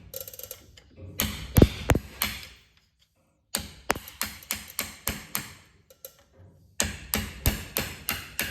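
Hammer blows driving out a worn rear bushing from a Polaris Ranger side-by-side: runs of sharp metallic taps about three a second, with the heaviest strikes around a second and a half in.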